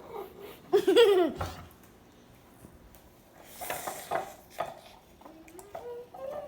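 A young child's wordless vocalising: a loud laughing cry about a second in that falls in pitch, then a quieter stretch with a few small clicks, and a faint rising hum near the end.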